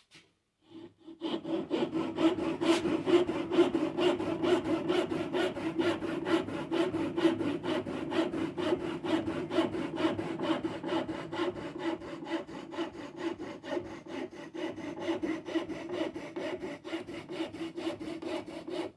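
Fine curved tenon saw cutting a slot down into a block of timber with quick, even back-and-forth strokes, starting about a second in. The blade has just been waxed because it was binding in the cut.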